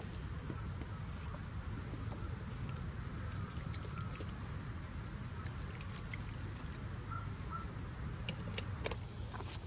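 Outdoor field ambience: a steady low rumble with scattered small crackles and snaps of dry brush as herbs are picked by hand from a thorny bush. Two faint short chirps about seven seconds in.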